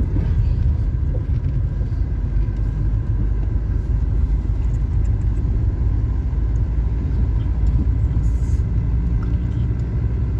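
Car driving slowly down a narrow mountain road, heard from inside the cabin: a steady low rumble of engine and tyres.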